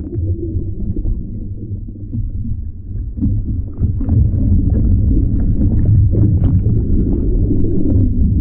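Muffled underwater sound of water churning around a capsized kayak and its paddler: a dense low rumble with small scattered ticks from bubbles. It grows louder about four seconds in as the paddler moves and bubbles stream past.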